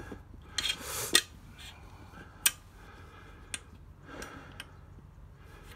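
A few sharp, isolated clicks and a short rustle as a bent Grade 8 steel bolt is handled and set against a gauge to measure its bend angle.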